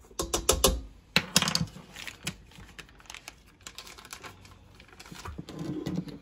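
Light clicks and knocks of ingredients being handled over a stainless steel stand-mixer bowl, quick and dense for the first second or so and then sparser, as a stick of butter is peeled from its plastic-lined wrapper and dropped in.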